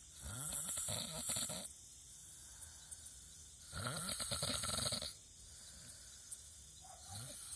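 A person snoring: three long rattling snores about three and a half seconds apart, each lasting about a second and a half, the third starting near the end.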